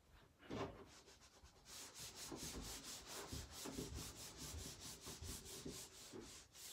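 A dry-erase whiteboard being wiped with a handheld eraser: quick back-and-forth rubbing strokes, about four or five a second, starting a couple of seconds in.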